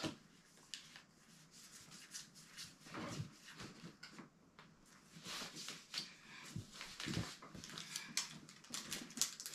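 Quiet rustling and small clicks of trading cards and plastic card sleeves being handled and sorted, with a few soft taps.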